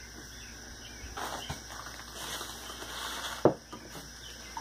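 Light handling noise of a metal quart can and a plastic bucket, with one sharp knock about three and a half seconds in, over a steady faint high background hum.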